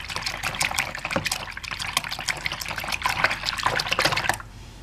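A hand swishing and splashing through shallow soapy water in a small plastic toy bathtub, stirring up bubbles; the splashing stops near the end.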